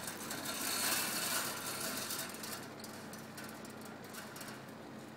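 Coffee beans rattling as they tumble in the rotating mesh drum of an electric drum coffee roaster during roasting. It is a steady mechanical rattle, louder for the first two seconds or so, then fainter.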